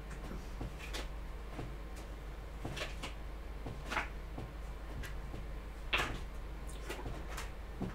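Tarot cards being shuffled and handled on a table: scattered soft taps and flicks a second or so apart, over a low steady hum.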